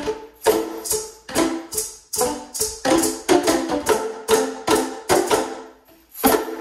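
An ensemble of Boomwhackers, tuned plastic tubes, playing a blues piece: hollow pitched notes struck in a quick rhythm, several pitches together, ending on a final struck chord near the end that dies away.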